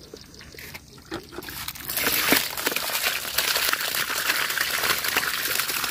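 Water and live stinging catfish poured from a plastic bucket into a plastic mesh basket, starting about two seconds in: a steady splashing as the water gushes through the mesh, with the crackle of the fish landing in the basket.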